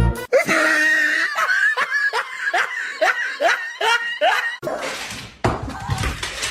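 A person laughing in a run of short, high, falling "ha" sounds, about two or three a second. Near the end it gives way to a noisy rush.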